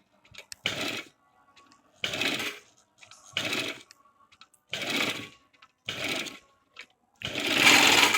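Overlock (serger) sewing machine running in short bursts, six times, each under a second, the last the longest and loudest. It is sewing round the curved edge of a scuba-fabric mask in short runs.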